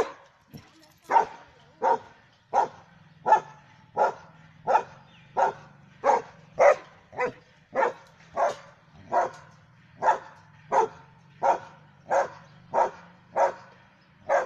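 German Shepherd dog barking over and over at an even pace, about three barks every two seconds.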